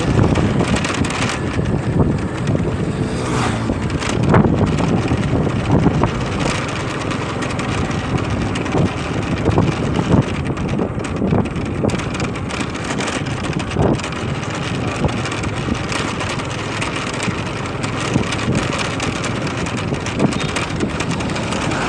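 Motorcycle riding along a road: a steady engine and road noise mixed with wind buffeting the microphone.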